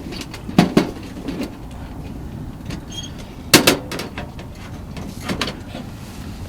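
A few sharp knocks and clatters of something being handled, the loudest about half a second and about three and a half seconds in, over a steady low background noise.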